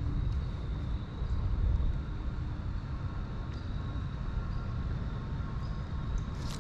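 Steady rush of river current around a wading angler, with a low rumble of wind on the microphone.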